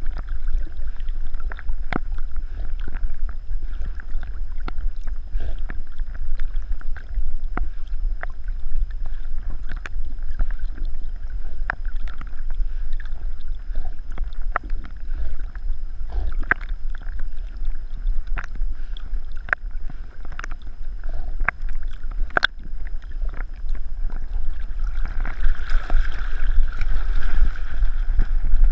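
Water sloshing and gurgling around a dog swimming, heard through a GoPro strapped to its back, with a steady low rumble and scattered small ticks. It grows louder and noisier near the end as the dog wades out through the shallows.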